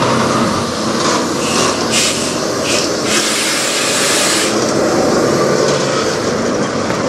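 Peterbilt semi truck's diesel engine idling, a steady low rumble, with a few hissing surges from about two to four and a half seconds in.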